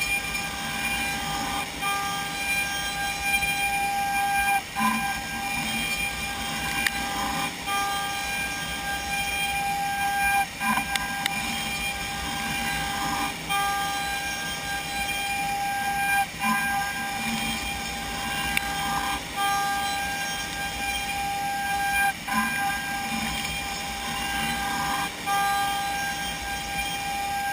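CNC router spindle milling wood, a steady high whine over cutting noise. It dips briefly about every three seconds as the tool works through repeated passes.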